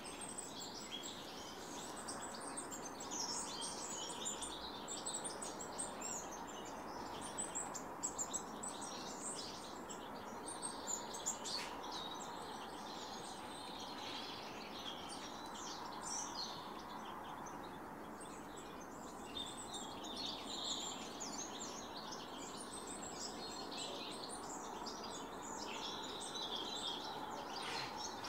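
Small garden birds chirping and singing, many short calls overlapping throughout, over a steady background hum.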